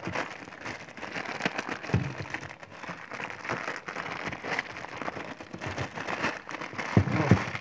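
Plastic instant-noodle packet crinkling and crackling as it is handled and opened, with a dull knock about two seconds in and a couple more near the end.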